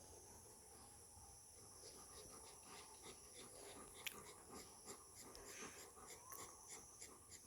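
A dog's faint breathing, with a few soft clicks.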